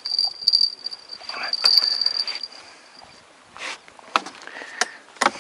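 A carp being landed in a landing net: a series of sharp knocks and bumps as the net with the fish comes up over the side of the wooden boat. A steady high whine runs through the first three seconds.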